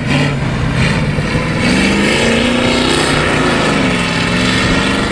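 Small modified racing tractor's engine revving up and easing off as it is driven hard through a tyre slalom, its pitch climbing to a peak about halfway and falling again.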